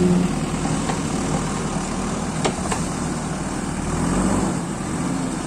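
JCB excavator's diesel engine running steadily, with a couple of short sharp clanks about two and a half seconds in.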